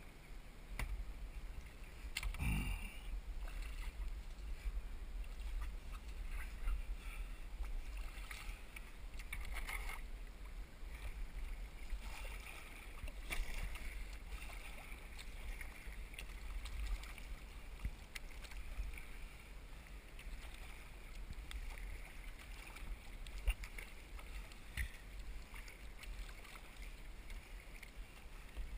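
Kayak paddle strokes splashing irregularly and choppy water slapping against the hull, over a steady low rumble of wind on the microphone.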